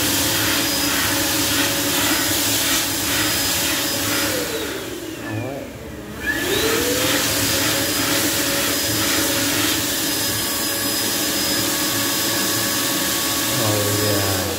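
Bradley Advocate's built-in hand dryer blowing: a steady rush of air over a motor whine. It winds down about four seconds in, starts up again with a rising whine a couple of seconds later, runs steadily, and winds down again near the end.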